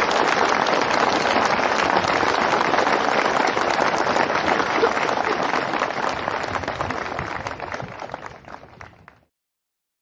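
Crowd applauding, dense clapping that thins and fades out over the last few seconds before cutting off to silence near the end.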